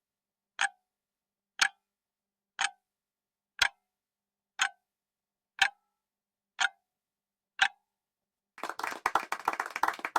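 Countdown timer sound effect: a clock tick once a second, eight ticks, then near the end a short burst of clapping.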